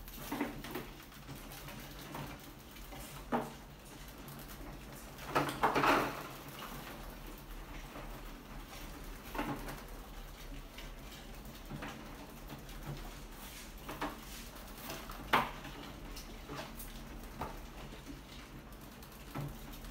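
Rats scrambling on a wire-mesh-lidded glass tank trap: scattered clicks and light rattles of claws on the mesh and glass, with a louder cluster of scraping clicks about five seconds in and a sharp click a little past the middle, over a faint steady hum.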